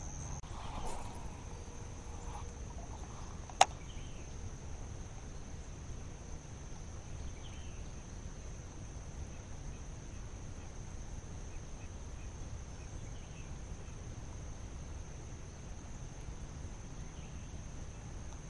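Insects chirring in one steady high note throughout, over faint low background noise, with a single sharp click about three and a half seconds in.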